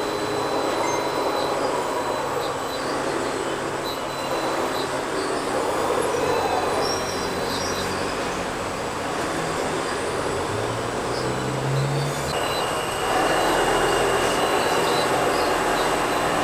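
Radio-controlled construction models working, their electric motors and gear drives whining steadily. A lower whine rises in pitch about ten seconds in, and from about thirteen seconds in a louder section begins, with a steady high whine.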